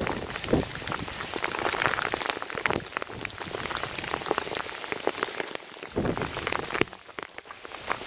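Small pea-sized hail pellets pelting down, a dense irregular patter of sharp ticks, with a brief low rumble about six seconds in.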